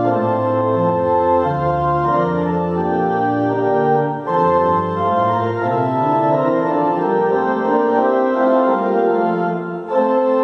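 Pipe organ playing a hymn in full held chords, the chords changing every second or so, with short breaks between phrases about four seconds in and again near the end.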